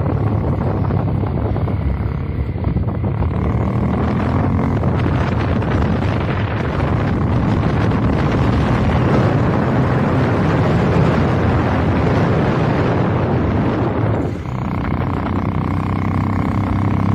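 Motorcycle engine running while riding, with wind buffeting the microphone; the sound drops briefly about fourteen seconds in.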